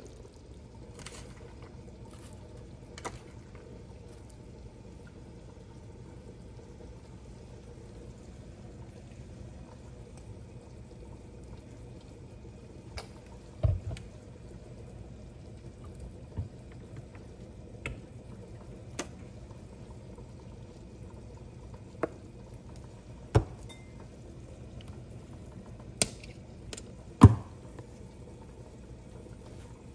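Steady hiss of rain, with about a dozen scattered sharp clinks and knocks of utensils against a bowl as pho is eaten; the loudest knock comes near the end.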